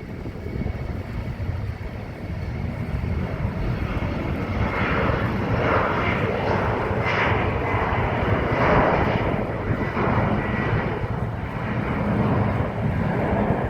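Airliner passing close by, its engine noise swelling to a peak about two-thirds of the way through and then easing, over a steady low wind rumble on the microphone.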